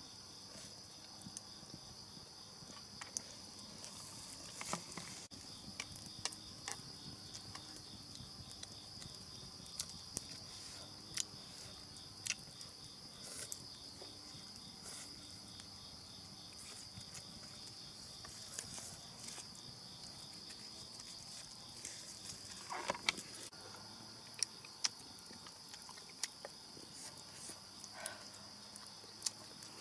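Insects keeping up a steady, high-pitched chorus, with scattered sharp clicks and taps throughout and a short louder knock about three quarters of the way through.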